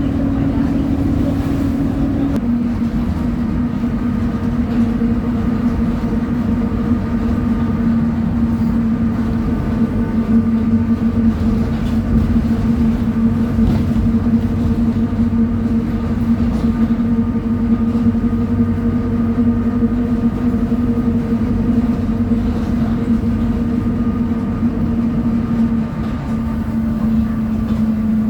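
Mercedes-Benz OF 1722M city bus under way, its diesel engine running at high revs and its differential whining in one steady tone that steps down slightly about two seconds in, over a continuous rumble.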